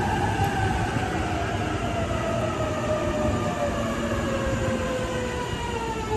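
E657 series electric express train rolling into a platform and braking: the pitched whine of its electric traction drive falls steadily as it slows, over the rumble of its wheels on the rails.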